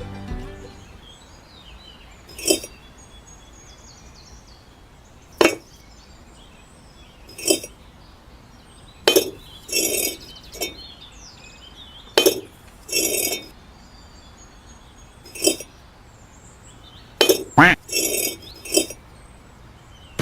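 About a dozen sharp clinks of small hard objects knocking together, spaced irregularly a second or more apart, a few of them slightly drawn out.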